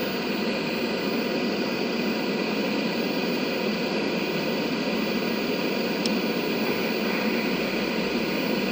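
Steady static hiss from the 1976 RCA XL100 colour TV's speaker, an even rushing noise with no tone in it.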